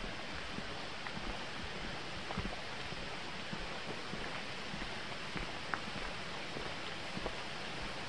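Hiker walking on a dirt forest trail: scattered light footstep crunches over a steady rushing hiss.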